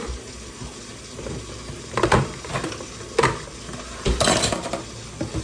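Dishes and utensils knocking and clattering in a kitchen sink: a few separate sharp knocks, with a longer rattling scrape about four seconds in.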